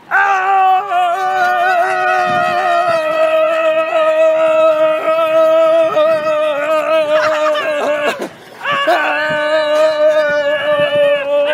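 A person's voice held in a long, loud yell at a steady pitch, broken once by a short breath about eight seconds in before it carries on.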